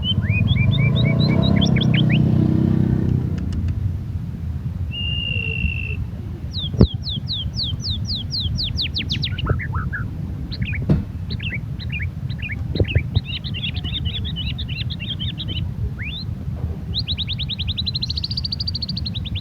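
White-rumped shama (murai batu) singing a varied song: bursts of quick downward-sweeping whistles, short trills and a long rapid run of notes near the end, with gaps between phrases. A low rumble sits under the song for the first three seconds.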